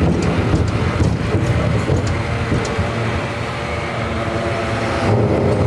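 San Francisco cable car rolling along its track: a steady low rumble with a few light clicks, and a faint thin squeal in the second half.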